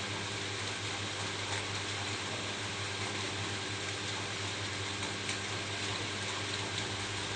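Steady rain falling on a roof, an even hiss with a few sharper drop ticks here and there over a low steady hum.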